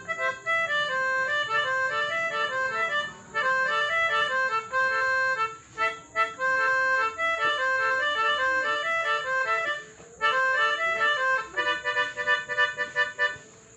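Telolet horn, a set of tuned air horns, playing a melody in short stepping phrases with brief breaks between them. Near the end several tones sound together.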